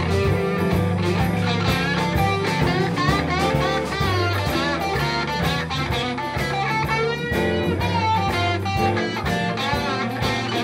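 Live blues band playing an instrumental passage: an electric guitar plays a lead line with bent notes over bass guitar, drum kit and keyboard.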